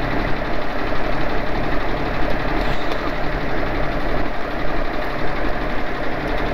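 Dump truck's diesel engine idling steadily, a constant low drone.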